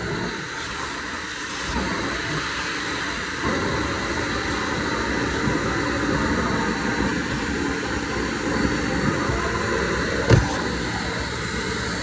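Vacuum cleaner running steadily while its hose wand sucks over the car trunk's carpet and plastic trim, with one sharp knock about ten seconds in.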